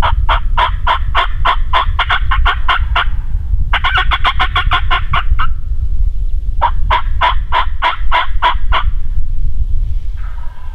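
Turkey yelping: three long runs of quick, evenly spaced yelps, several notes a second, with short pauses between the runs. A steady low rumble sits underneath.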